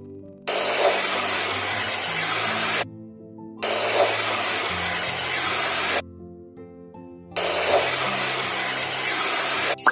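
Three long bursts of hissing noise, each about two seconds, starting and stopping abruptly with short gaps between them, over soft background music.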